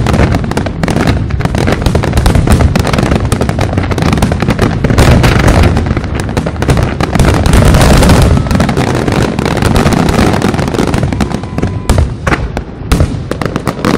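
Dense barrage of aerial firework shells bursting in rapid succession, booms overlapping into a continuous loud rumble, thinning briefly near the end before another loud burst.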